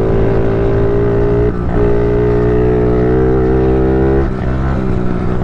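Honda CRF50 pit bike's 49cc single-cylinder four-stroke engine running under throttle as the bike is ridden. The engine note briefly dips and picks up again twice, about one and a half seconds in and again a little past four seconds.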